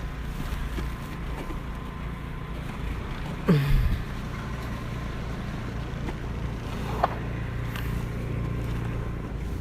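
A steady low motor hum, with a short falling voice-like call about three and a half seconds in and a brief click near seven seconds.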